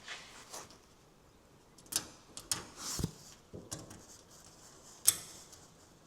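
Scattered clicks and light knocks of small parts and hand tools being handled while bolting parts onto a jeep bonnet, with a duller thump about three seconds in and a sharp click about five seconds in.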